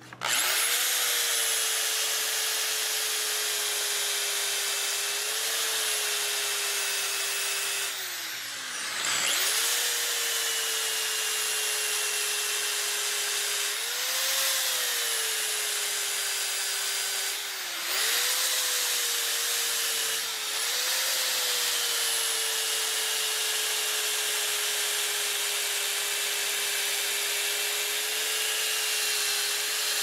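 Handheld power sander with a red sanding disc running against the wooden top of a guitar body: a steady motor whine over the hiss of abrasive on wood. The motor slows and spins back up about eight seconds in and again a little past halfway, with smaller wavers in pitch as the pressure changes.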